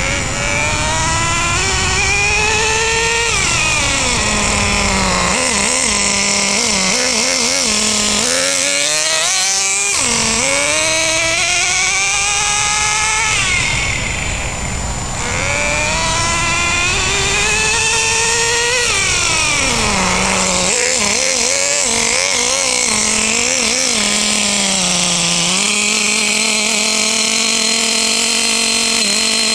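Traxxas Jato 2.5 RC car's small nitro engine running loud, its pitch sweeping up and down again and again as it is driven and revved. Near the end it settles into a steady idle.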